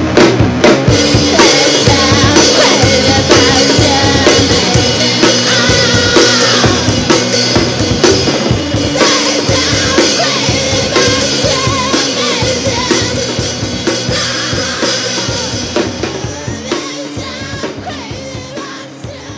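Demo song playing with a full drum kit pounding out a fast beat under the band, gradually fading out over the last few seconds.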